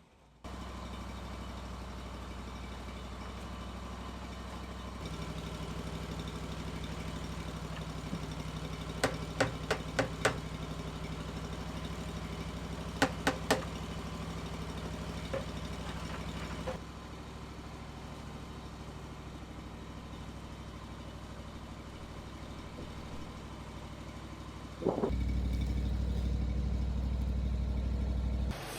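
An engine idling steadily, with a few sharp clicks about nine and thirteen seconds in. The hum grows louder and deeper over the last few seconds.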